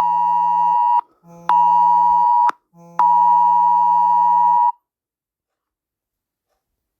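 UK Emergency Alert test tone on a mobile phone: a loud, steady two-tone alarm sounding in pulses (about a second on, half a second off, three times) with a low buzz under each pulse. It stops abruptly about five seconds in, and a sharp click is heard midway.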